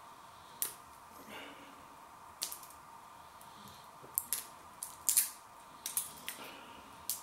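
Fingers picking and peeling the plastic seal off the neck and cap of a small bottle of Tabasco habanero sauce. It gives a series of sharp crinkles and clicks at irregular intervals, coming faster in the second half, over a faint steady hum.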